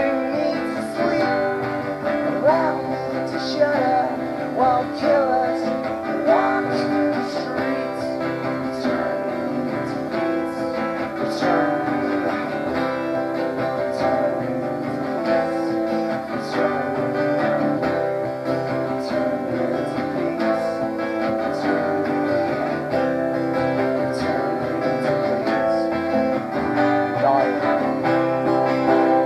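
Two acoustic guitars played together live, strummed and picked in a steady song.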